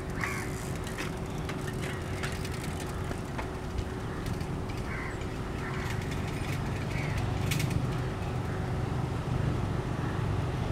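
Low rumble of an approaching electric-hauled passenger train, growing louder in the second half, with scattered short high chirps and a few sharp clicks over it.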